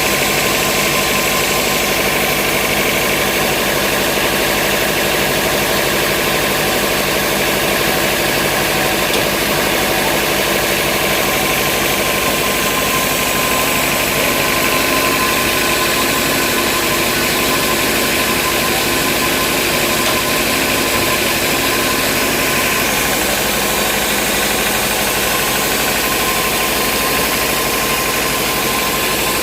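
Sawmill vertical band saw running steadily: a loud, continuous machine noise with a steady whine that does not change.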